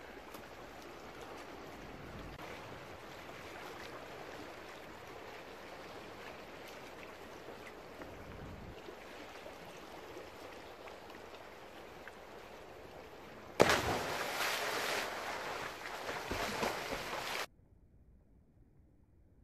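Steady wash of sea water against rocky shore. Near the end comes a louder, rougher rushing noise for about four seconds that stops abruptly, leaving near silence.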